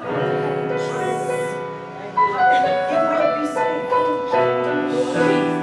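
Church keyboard music playing sustained chords that shift every second or so.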